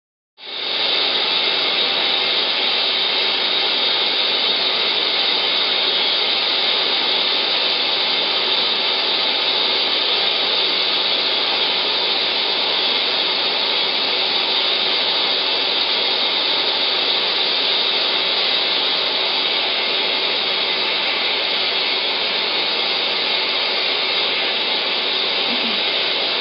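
Steady whirring hiss of dental equipment running, starting suddenly about half a second in, with a faint steady high tone through it.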